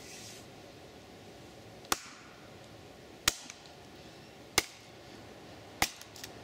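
A mattock splitting a block of dry wood on a tree stump: four sharp knocks of the blade striking the wood, evenly spaced a little over a second apart.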